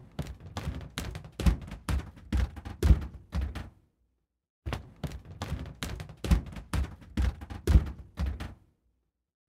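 Footsteps, about two or three steps a second, in two runs of roughly four seconds each with a short pause between them.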